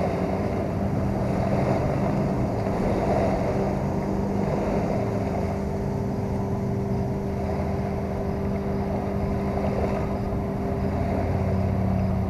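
A steady engine drone, with a deeper engine hum growing louder near the end.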